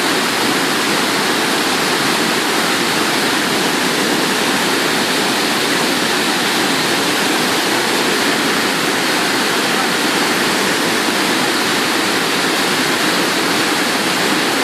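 Waterfall: falling water rushing in a steady, loud, unbroken roar of noise.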